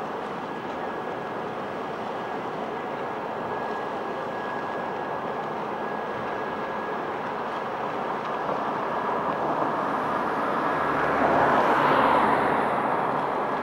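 Steady mechanical drone with a thin, even whine from the CMV Columbus cruise ship as it pulls away from the quay. A passing vehicle swells up about ten seconds in, loudest near the end, then fades.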